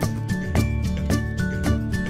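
Background music with a steady beat and a plucked, bell-like melody.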